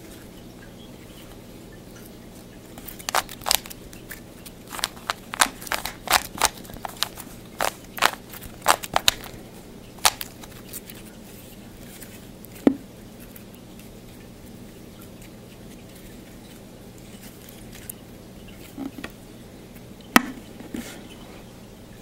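Plastic Rubik's Cube being turned by hand: a run of quick clicks and clacks as its layers snap round for several seconds. After that come a few scattered clicks and a sharp knock near the end.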